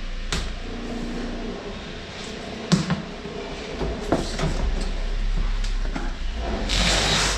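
A cardboard box being opened and its packaging handled: scattered knocks and clicks, then a short rustle near the end, over a low steady hum.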